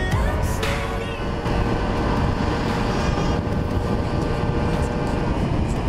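Steady riding noise from a Piaggio Ciao moped under way: heavy wind rumble on the microphone over the small two-stroke engine running.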